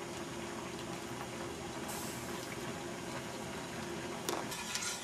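Tomato and white-wine sauce simmering and bubbling steadily in a sauté pan on a gas stove as it thickens, with a couple of light clinks of a metal ladle against a steel pot near the end.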